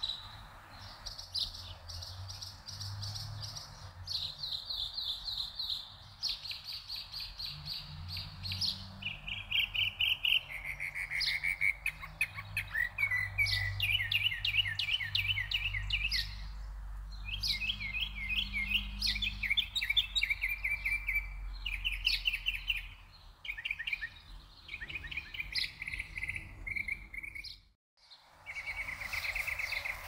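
Songbirds singing a run of rapid trills, each a second or two long and pitched a little higher or lower than the last, with a low distant rumble underneath through the middle of the stretch. The sound cuts out completely for a moment near the end.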